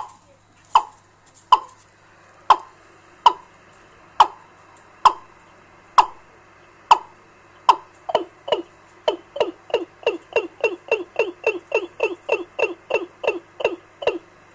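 Recorded bird-lure call played through a bird-trapping amplifier's speaker: short sharp notes that slide downward in pitch. They come about once a second, then quicken to about three a second around halfway, and stop shortly before the end. A faint steady electrical hum from the amplifier runs underneath.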